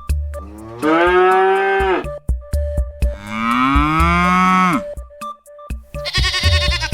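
A cow mooing twice, two long low calls with the second rising and then falling in pitch, over light music with a steady beat; a short quavering bleat starts near the end.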